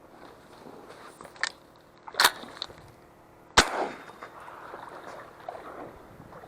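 Shotgun shots while duck hunting: a fainter crack, then two loud shots about a second and a half apart, the last one echoing briefly.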